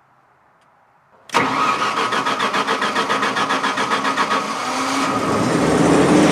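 Onan standby generator's engine turning over on its electric starter with a rapid, even chugging rhythm, starting suddenly about a second in. After about three seconds of cranking it catches and runs up into a steady, louder run.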